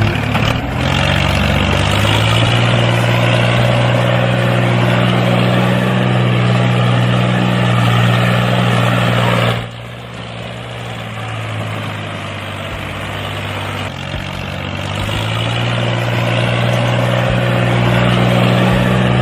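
An engine running steadily. About ten seconds in it drops to a lower, quieter note, then climbs back up to its earlier pitch over the last few seconds.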